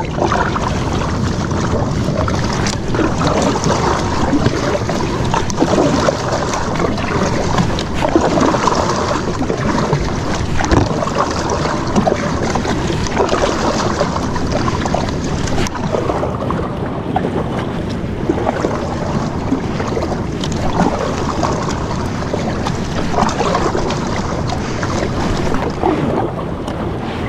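Wind buffeting the microphone over the sea, with water splashing and lapping as a kayak is paddled with a double-bladed paddle.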